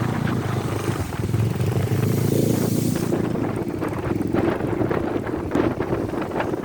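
Rough sea surf and wind buffeting the microphone, with a motor vehicle's engine running over the first half and fading out.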